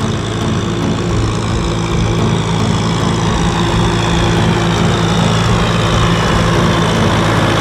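Kubota M6040SU tractor's four-cylinder diesel engine running steadily as it drives through deep water and mud, towing a trailer, with water churning around the wheels and blade.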